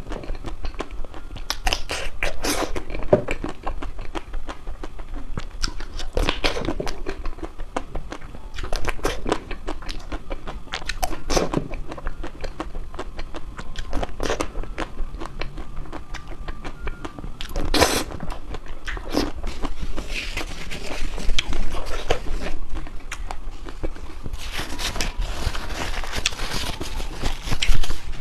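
Crispy ice cream being bitten and chewed, with irregular crunches, and two stretches of denser, crackly crunching in the latter part.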